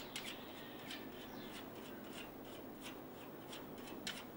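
Small birds chirping in a garden: short, irregular high chirps, several a second, over faint outdoor background, with one louder chirp near the end.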